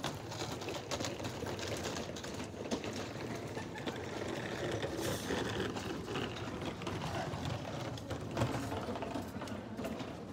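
Hard wheels of a rolling suitcase rattling steadily over stone paving.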